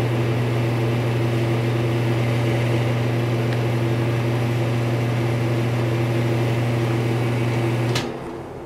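Old Fasco wall-mounted electric room heater's fan running, a steady low electrical hum over a rush of air. About eight seconds in, a push-button switch clicks and the sound drops as the fan begins to coast down.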